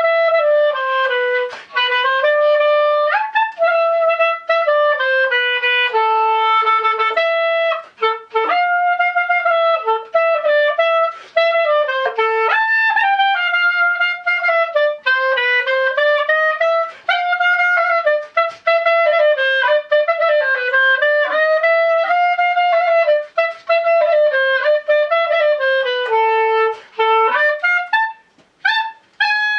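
Solo clarinet playing a klezmer melody, a single line with notes that slide and bend into one another, broken by a few short pauses for breath.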